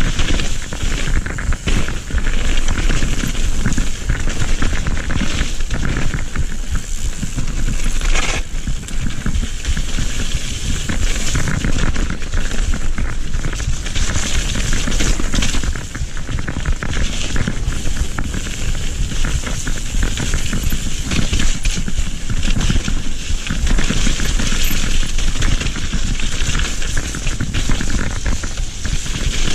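Mountain bike riding fast down a wet, muddy dirt trail: steady tyre noise on the mud with a dense, continuous rattle of the bike over rough ground, and wind buffeting the microphone.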